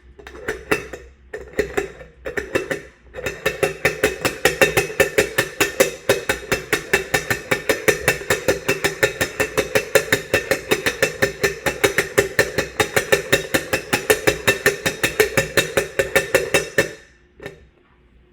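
Rapid, even tapping or knocking at about five strikes a second, lasting about fourteen seconds, after a few scattered knocks; it stops near the end.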